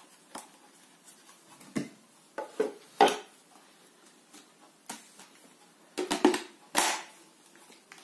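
Plastic parts of a Ginzzu cordless handheld vacuum being handled and fitted back together: the filter pressed into the dust container and the container snapped onto the body. Scattered clicks and knocks, the loudest about three seconds in and a cluster between six and seven seconds.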